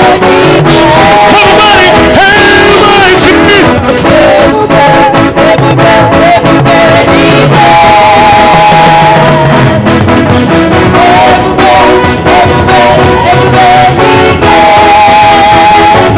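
Loud live gospel praise band music with a steady drum beat and held melodic lines.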